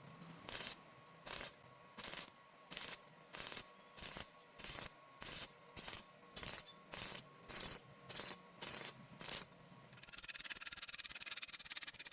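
Electric welding arc: about fifteen short bursts of arc crackle, evenly spaced at roughly a second and a half apart per two, then, from about ten seconds in, one continuous crackling weld.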